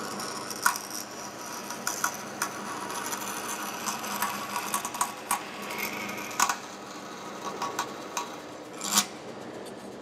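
DoAll vertical metal-cutting bandsaw running, its blade cutting cast brass with a steady hiss and irregular sharp ticks and snaps as the piece is fed and turned into the blade. The loudest snaps come just under a second in and near the end.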